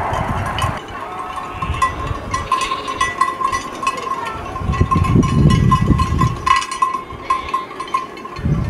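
A sheep bell on a ewe's collar clinking over and over as she trots through the pasture with her lambs, with a swell of low rumble around the middle.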